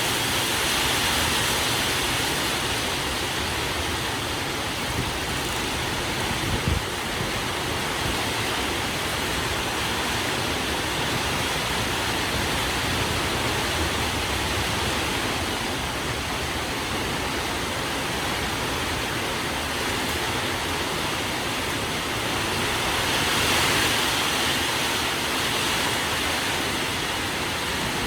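Heavy rain falling steadily, a dense even hiss that swells louder twice, about a second in and again near the end. A single short knock about seven seconds in.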